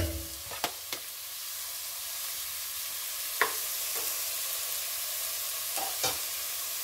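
Chopped onions and green chillies frying in oil in a nonstick pan: a steady sizzling hiss, with a few light clicks and taps scattered through it.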